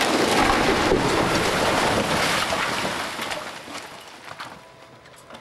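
Upper wall of a concrete apartment block collapsing under a demolition excavator: a loud rushing rumble of falling concrete and rubble with scattered knocks, at its loudest in the first two seconds or so and fading away over the next two.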